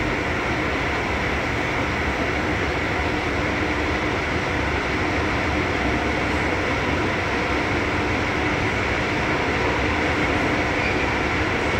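Long subway-station escalator running underneath the rider, a steady mechanical rumble with a faint constant hum.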